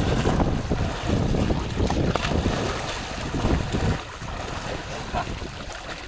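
Water splashing as several bathers duck their heads under and thrash in shallow lake water, with wind buffeting the microphone. The splashing is heaviest for the first four seconds, then lighter.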